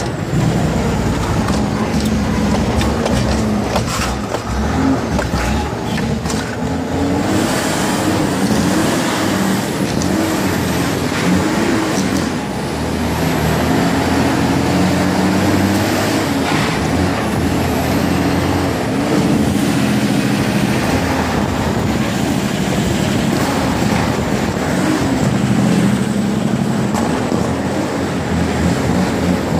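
Freightliner FLD truck's Cummins N14 inline-six diesel, heard from inside the cab, pulling through the gears: the engine pitch climbs and drops back again and again as it is shifted.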